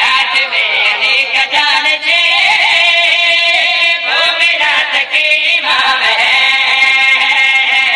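A voice singing a devotional Urdu qasida, drawing out long, wavering notes without clear words.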